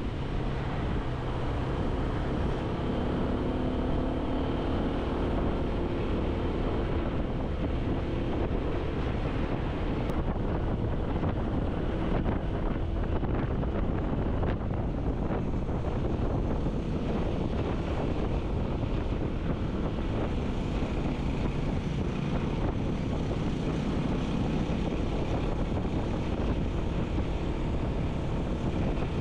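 A motor vehicle travelling along a road, its engine running under steady wind noise on the microphone. In the first several seconds the engine note rises and falls.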